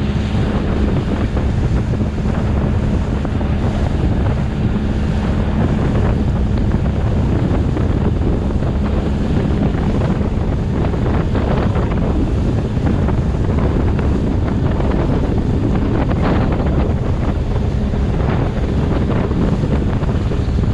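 Small boat running under outboard power: a steady engine hum under heavy wind noise on the microphone and the rush and slap of water against the hull.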